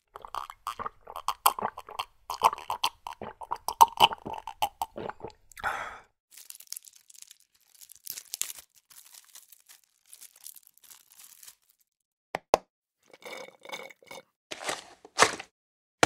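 Juice being drunk, with wet gulping sounds for about five seconds, then the rustle of a drinking straw being taken out of its wrapper. About twelve seconds in, a single sharp click as the straw is pushed through the juice carton, followed by short slurps through the straw and the empty carton being crumpled near the end.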